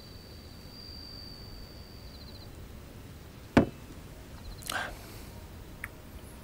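Quiet night-time ambience with a thin, steady high whine for the first couple of seconds, then a single sharp knock about three and a half seconds in, a drinking glass set down on a table, followed about a second later by a short breathy rush.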